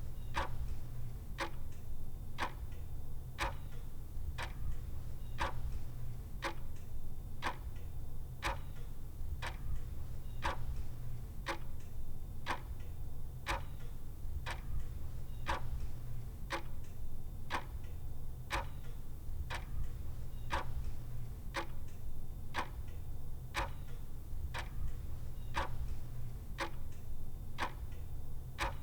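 Clock ticking with sharp, evenly spaced ticks, a little faster than one a second, over a low steady rumble.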